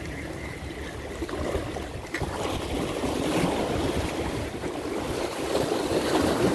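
Sea water washing against the shore, with wind buffeting the microphone. A single light click comes about two seconds in, and the wash grows louder after it.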